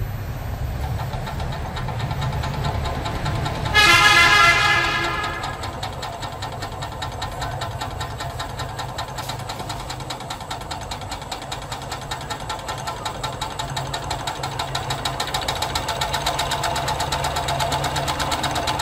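Homemade steam engine, a refrigerator-compressor boiler over a gas burner driving a single cylinder and flywheel, running with a fast, even chuffing beat that grows louder in the second half, over a low rumble. About four seconds in, a loud pitched toot sounds for about a second.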